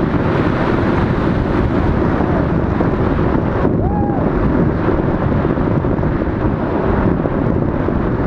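Wind buffeting the body-mounted camera's microphone during a tandem parachute descent under an open canopy: a loud, steady rushing rumble.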